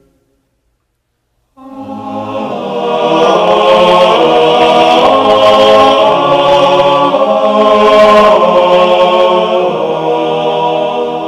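Choir singing sustained chords. After about a second and a half of silence the voices come in and swell, then ease off near the end.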